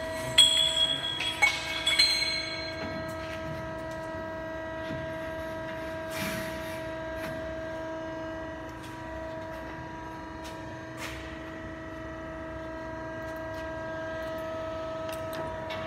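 Automatic CNC cold-saw steel pipe cutting machine running in automatic mode: a steady machine hum with several held tones throughout. Loud metallic clanks with ringing come in the first couple of seconds, and a short hiss about six seconds in.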